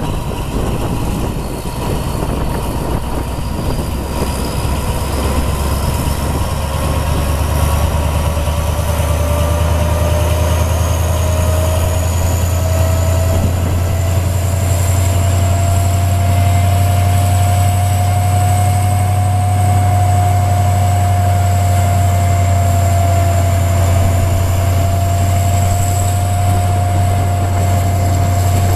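Alsthom diesel-electric locomotive standing and running, a steady low engine rumble. A whine over it rises slowly in pitch for the first fifteen seconds or so, then holds level.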